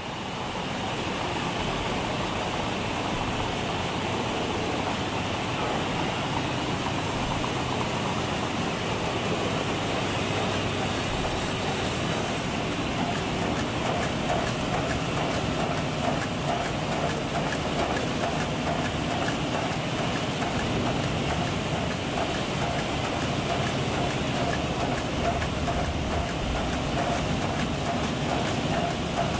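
Automatic bottling line running: plastic water bottles rattling along a conveyor through a shrink-sleeve labeling machine, a steady mechanical noise with a high hiss. From about halfway a fast run of small ticks and clatter joins in.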